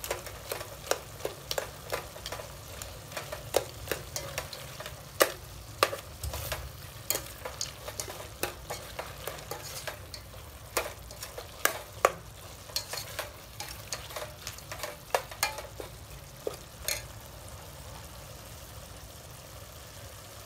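Metal ladle stirring frog meat in a stainless steel pot, clinking and scraping against the pot about once or twice a second, over the steady sizzle of the meat frying in its spice paste. The clinks stop about 17 seconds in, leaving only the sizzle.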